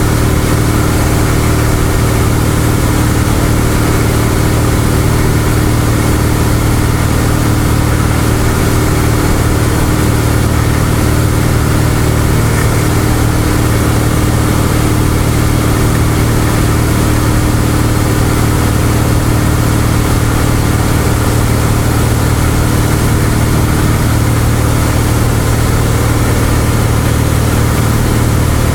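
Cessna 172's piston engine and propeller droning steadily in flight, heard inside the cabin, with a hiss over the low engine hum.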